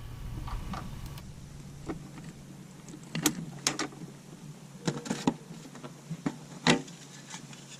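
A scattered handful of sharp little clicks and plastic knocks as a small metal carabiner clip is snapped through the holes of a plastic sewer hose holder's end cap and the cap is handled.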